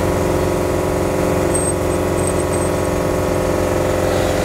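Central Pneumatic (Harbor Freight) air die grinder with a rotary rasp running steadily while it enlarges a hole in a steel bracket.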